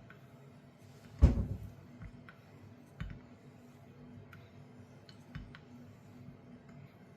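A straight razor being honed on a sharpening stone: sparse light clicks and knocks, with one louder knock about a second in.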